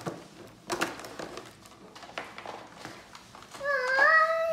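Clear plastic toy packaging crinkling and rustling in short bursts as it is handled, then, about three and a half seconds in, a young child's voice holding a long, steady note.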